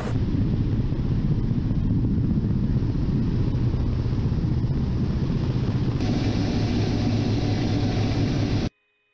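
Attack helicopter in low flight, heard from a camera on board: a steady, dense rumble of rotor and engines mixed with wind noise. The sound turns brighter about six seconds in and cuts off abruptly near the end.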